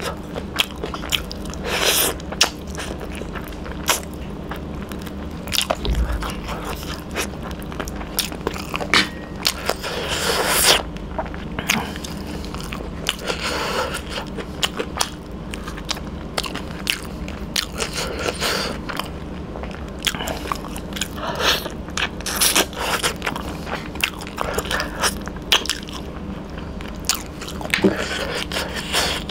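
A man biting and chewing fried chicken innards with rice, eaten by hand: wet chewing and crunching, with a continual run of sharp mouth clicks and a few longer noisy swishes.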